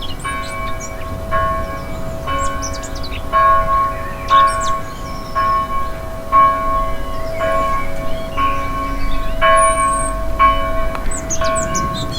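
A church bell tolling steadily, about one stroke a second, each stroke ringing on into the next, while small birds chirp and twitter.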